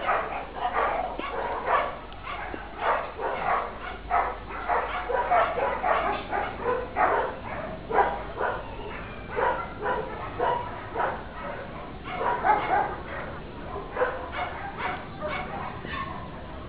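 Many dogs barking over one another in an animal shelter, short barks coming several a second without a break.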